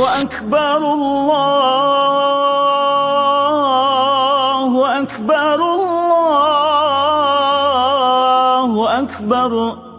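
A solo voice chanting in long, held, melodic phrases with a wavering pitch, pausing briefly about five and nine seconds in.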